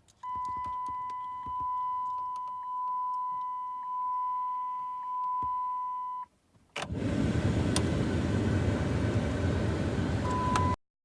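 The truck's electronic warning chime sounds as a steady beep tone that swells about once a second, then stops. About half a second later the newly installed blower motor of the 2008 Dodge Ram 1500 switches on, and its fan blows air with a loud, even rush.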